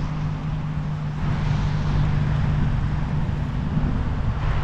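Steady wind rushing over the microphone and a bicycle's tyre noise on a wet paved path, with a constant low hum underneath.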